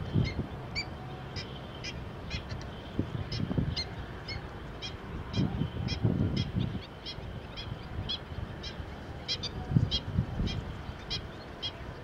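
Black-winged stilts calling: short, sharp, nasal yelping notes repeated about three times a second, unevenly. A few low rumbles of wind on the microphone come and go, the loudest about six and ten seconds in.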